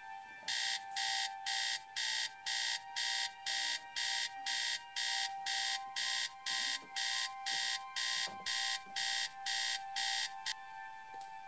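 Electronic alarm clock beeping: short high beeps about two a second, a wake-up alarm that stops abruptly about ten and a half seconds in when it is switched off.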